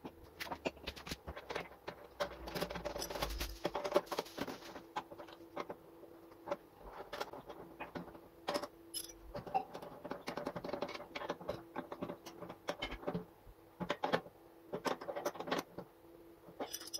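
Open-end spanners clinking and scraping on the brass nut of a gas heater's thermocouple while it is fitted into the pilot assembly: a run of small, irregular metallic clicks and taps, with a faint steady hum underneath.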